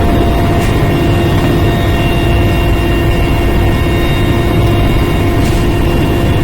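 Air Force helicopter running, with loud, steady engine and rotor noise: a constant whine over a low rumble.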